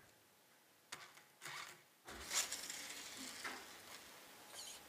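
Radio-controlled car's tyres spinning and sliding as it does donuts: a faint rushing noise that starts about two seconds in, after a click and a short scuff.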